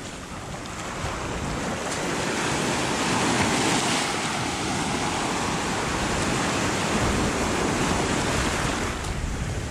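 Black Sea waves washing on the shore, swelling over the first few seconds and then holding steady, with wind rumbling on the microphone.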